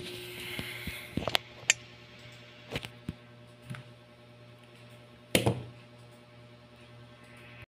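Handling noise: a handful of scattered clicks and knocks from hands moving the cube, accessories and camera on a desk mat. The loudest knock comes a little past five seconds in, over a faint steady hum.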